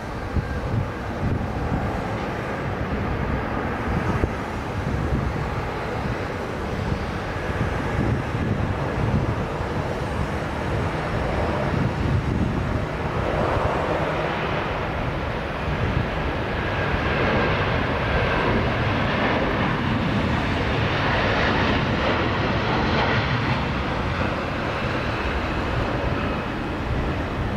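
Jet engine noise from a Boeing C-135FR tanker's four turbofans: a steady rumbling roar from the runway that grows louder and harsher in the second half as the aircraft runs up to take-off thrust and rotates.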